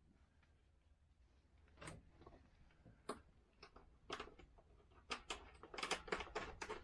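Faint, scattered sharp clicks and light knocks of metal hardware as a heavy battery cable's lug is fitted and fastened onto a battery terminal. The clicks come sparsely at first and grow more frequent over the last few seconds.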